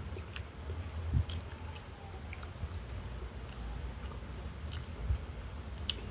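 A person chewing and eating, with scattered short wet mouth clicks and smacks.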